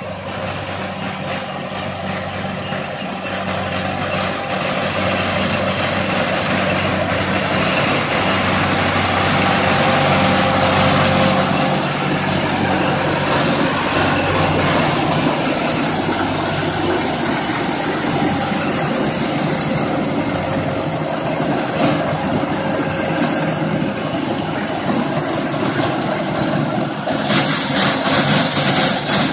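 Sonalika RX 90 4x4 tractor working under load, driving a tractor-mounted Landforce mulcher that shreds straw stubble: a steady engine drone under the dense rushing hiss of the chopping rotor. It grows louder a few seconds in and holds, with a brief harsher hiss near the end.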